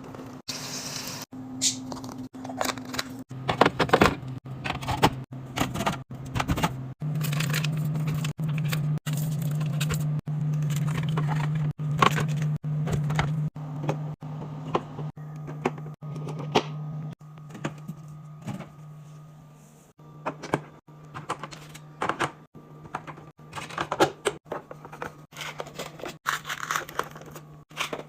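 Repeated clicks, knocks and taps of food containers, bottles and packaging being handled and set down while a fridge is restocked, over a steady low hum.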